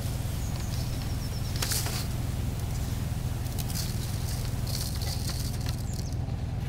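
Salt-and-sugar cure sprinkled by hand over salmon fillets in a cooler: soft patters of falling grains, heard now and then over a steady low hum.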